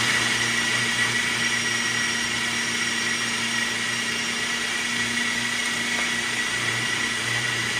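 Single-serve personal blender running steadily at full speed, its cup held down on the base while it purées a tahini sauce. The motor gives a constant whine.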